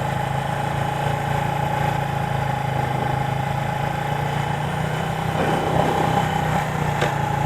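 1977 Suzuki GS400's two-cylinder engine running steadily at low revs while the bike rolls slowly, picking up slightly about five and a half seconds in.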